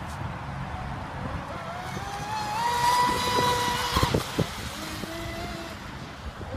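High-pitched whine of an RC speedboat's TP 3640 2080kv brushless motor and propeller running at speed on 5S power. The pitch climbs to a steady high tone as the boat passes, then falls away, with a few short knocks at the loudest point.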